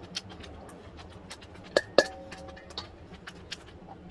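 A metal spoon set down into a stainless steel bowl: two quick clinks about two seconds in, and the bowl rings briefly after them.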